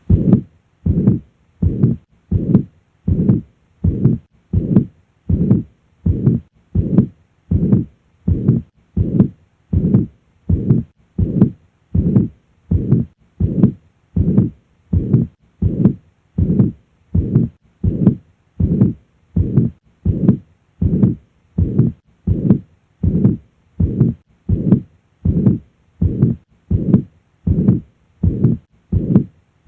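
Heart sounds of mitral regurgitation heard through a stethoscope at the cardiac apex. Each regular beat, a little under one and a half a second, carries the systolic murmur of blood leaking back through the mitral valve.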